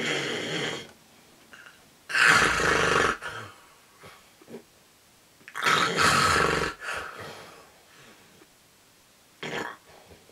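Loud snoring: three long, rasping snores about three seconds apart, then a shorter, quieter one near the end.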